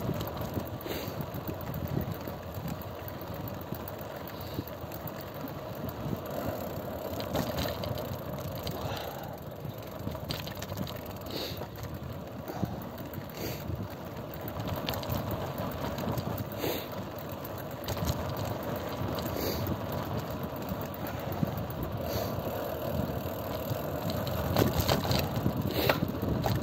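Wind buffeting the microphone over the road rumble of a bicycle ride, with scattered clicks and rattles.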